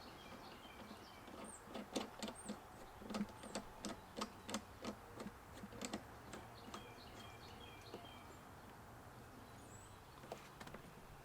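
Irregular light clicks and taps of metal pressure-washer fittings being handled and screwed onto the washer's outlet, busiest in the first half and tailing off. Birds chirp in the background.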